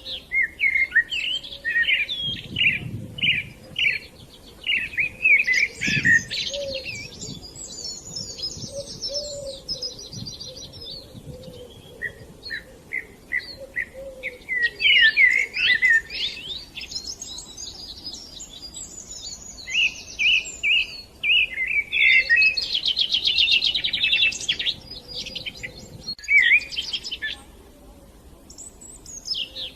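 Songbirds singing: bursts of quick chirps and fast buzzy trills, sometimes overlapping, with short pauses between phrases.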